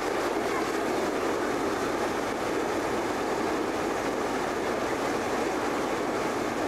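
Hot-air balloon propane burner firing: a long, steady blast of hissing noise that starts abruptly.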